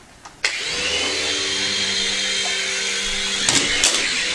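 Small remote-control helicopter's motor and rotor starting suddenly about half a second in and running steadily, a hum with a high hiss of the spinning blades. A few sharp knocks come near the end.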